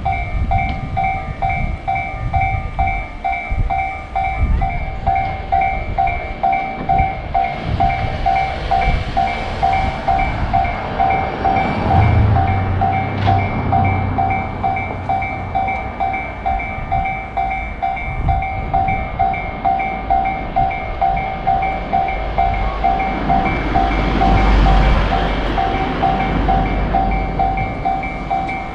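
Japanese railroad crossing alarm ringing its steady repeating electronic ding, while a train rushes past twice: once about a third of the way in and again near the end, with rumble and wheel noise swelling under the bell.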